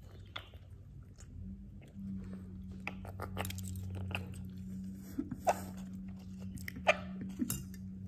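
Food being chewed and crunched close to the microphone, mixed with a few short, sharp calls from a Quaker parrot. A steady low hum comes in about two seconds in and runs underneath.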